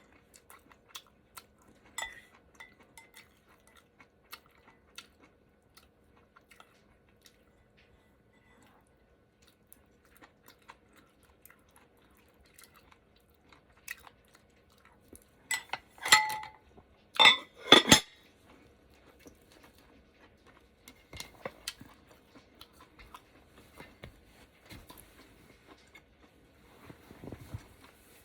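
Close-miked eating of ramen hotpot: utensils clicking against the bowl and chewing. A bit past halfway there are a few much louder, noisy slurps of noodles.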